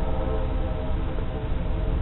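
Narrow-gauge steam train running, a steady low rumble and hiss, with the last of its whistle fading out right at the start.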